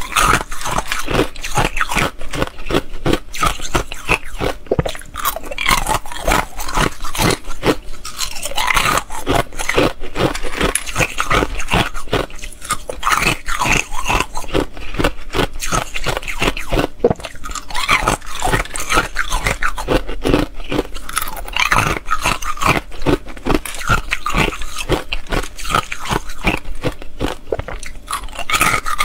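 Thin ice pieces crunched and chewed in the mouth: a dense run of crisp cracks, several a second, going on without pause.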